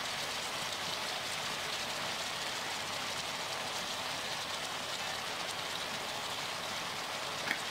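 Steady sizzling hiss of a pot of spinach and sauce cooking on the stove, with one short knock near the end.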